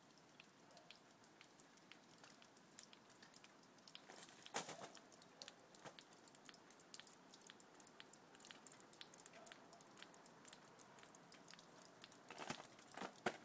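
Near silence with faint, scattered ticks and patter of dripping water around ice-covered surfaces. A louder knock comes about four and a half seconds in, and a few more near the end.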